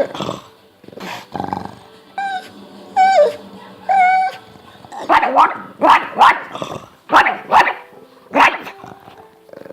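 A dog whining in three drawn-out cries, then breaking into a quick run of about seven sharp yips and short barks.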